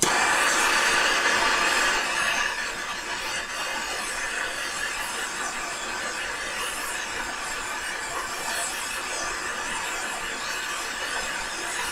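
Handheld gas torch flame hissing steadily while it heats an aluminium compressor wheel at its hub, so the aluminium expands and frees it from the steel shaft. It is a little louder for the first two seconds, then holds level.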